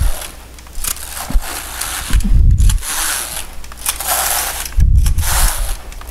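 Passap electronic knitting machine lock pushed across the needle beds, knitting rows: a rasping, rattling swish with each pass, and two dull knocks where it stops and turns at the end of a row.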